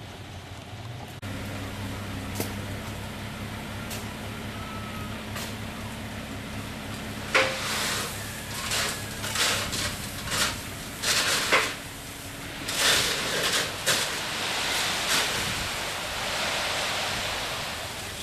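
Dump truck's engine running and speeding up as the hydraulic hoist lifts the loaded bed, then the load of sand sliding out of the tipped bed in a series of loud rushing, crunching spills from about seven seconds in, settling into a steadier pour near the end.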